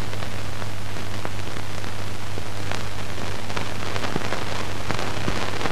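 Steady hiss and low hum from an old film soundtrack, with scattered faint crackles and clicks.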